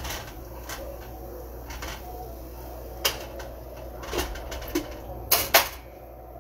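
Pots, pans and a glass pot lid knocked and clinked with metal tongs on a stovetop: a few scattered sharp knocks, the loudest pair near the end, over a steady low hum.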